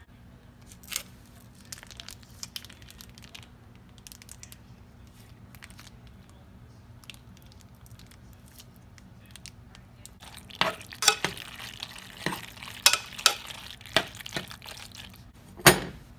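Kitchen handling sounds: scattered faint crinkles and clicks as a foil pouch of cheese sauce is squeezed over the macaroni in a saucepan, then from about ten seconds in a busy run of sharp clicks and scrapes. Near the end, one sharp knock as a ceramic plate is set down on the glass cooktop, the loudest sound.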